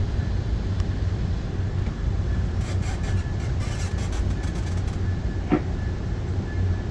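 Steady low rumble of an Amtrak Pacific Surfliner passenger train heard from inside a coach, with a faint steady high tone and a scatter of light clicks in the middle.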